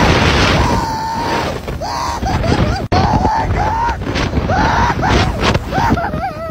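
A person screaming in fright: one long held scream, then a string of shorter rising-and-falling screams, the last one wavering, over a steady low rumble.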